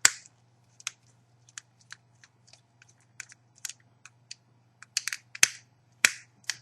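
Small, sharp clicks and taps at irregular intervals from hands working small Cat5 cable terminal connectors into the screw terminals of a CCTV balun or power jack with a small screwdriver, over a faint steady low hum.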